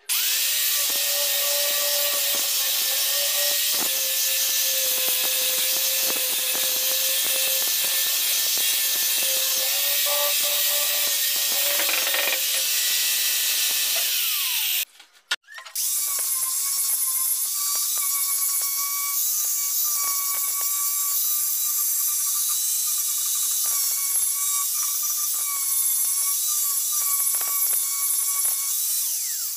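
Electric angle grinder running with its disc against the end grain of a wooden log: a steady high whine over the hiss of grinding wood. About halfway it winds down with a falling whine and stops briefly, then starts again and keeps grinding.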